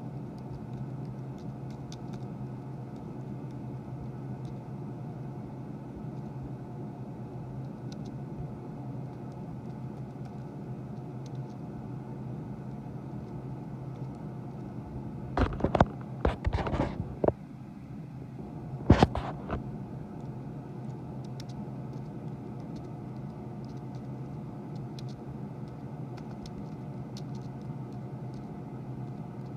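Low steady electrical hum with faint scattered clicks. About halfway through comes a short flurry of loud knocks and clatter, then one more loud knock about two seconds later.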